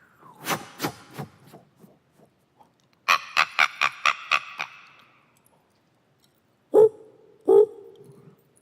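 Vocal imitation of animal calls: a quick run of clicks, then a fast series of about seven high yelping calls, then two loud barking calls near the end.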